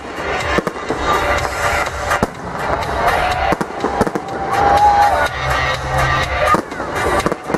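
Aerial firework shells bursting in a string of sharp bangs at irregular intervals, with music playing throughout.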